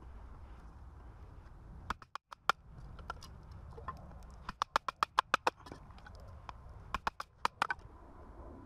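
Sharp clicks of a knife cutting into a wooden stick, in a few short runs of quick strokes, the fastest run about halfway through.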